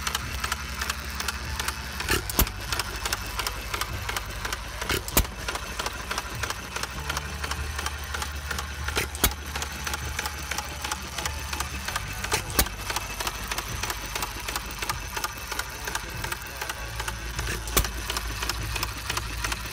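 Green hit-and-miss stationary gas engine running with a fast, steady clatter, broken by a sharp bang every few seconds.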